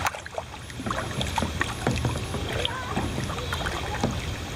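Kayak paddling: a double-bladed paddle dipping and pulling through the water, with irregular small splashes and drips from the blades over the hull.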